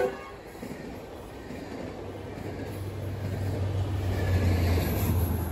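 Metrolink passenger train passing on the rails just as its horn cuts off. A low diesel locomotive rumble then builds steadily louder over the last few seconds.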